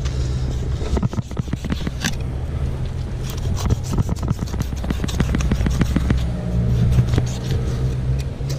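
Fillet knife cutting and scraping a fillet off a tripletail's rib cage and backbone, a run of short clicks and scrapes. A steady low hum runs under it.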